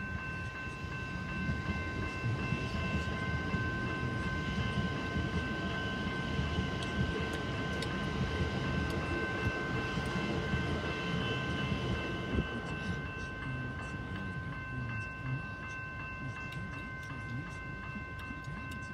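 Siemens electric suburban train passing over a level crossing with a low rumble that fades after about thirteen seconds. Over it the crossing's warning bell rings steadily and stops near the end.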